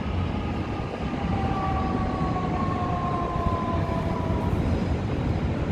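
A jet aircraft passing in the distance: its engine whine falls slowly in pitch over about four seconds, heard as two steady tones above a steady low rumble.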